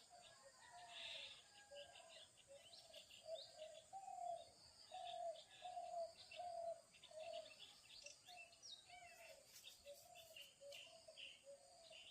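Faint bird calls: one bird repeats a series of short hooting notes about twice a second, while smaller birds chirp and twitter at a higher pitch.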